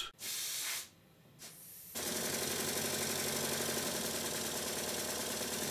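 A short hiss of air, a brief pause, then a Stuart triple expansion model engine running steadily on compressed air from about two seconds in, with fast, even exhaust beats. Its valve gear has just been retimed so that it runs the same in both directions.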